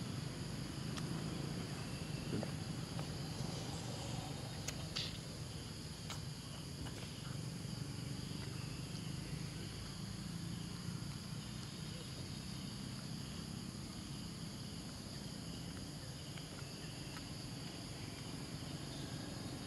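Steady high-pitched insect chorus, several even tones held throughout, over a low steady outdoor rumble, with a few faint clicks around five seconds in.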